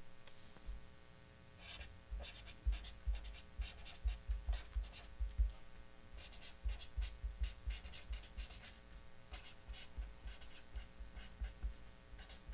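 Felt-tip marker writing on a sheet of paper on a desk: an irregular run of short scratchy strokes, with soft low knocks of the pen and hand against the table.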